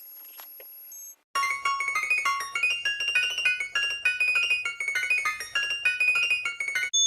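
A rapid run of piano-like keyboard notes, a melody sped up to about five times normal speed, preceded by about a second of faint high steady tones and a brief drop-out.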